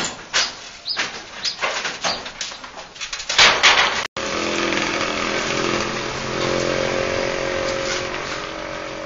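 Knocks and clatters of corrugated metal roof sheeting being worked on, a dozen or so uneven strikes over the first four seconds. After a sudden break, an engine runs steadily, its hum swelling a little past the middle.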